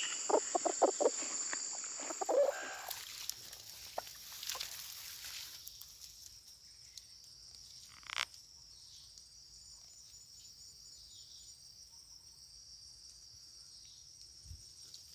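Red junglefowl rooster giving a quick run of about six short calls, then one more call about two seconds in, over a steady high insect drone. Then faint rustling in undergrowth and a single sharp crack about eight seconds in.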